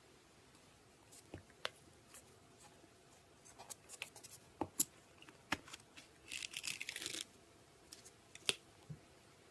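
Hands working slime: a scattered series of sharp, sticky pops and clicks, with a short burst of crackling as it is stretched about six to seven seconds in.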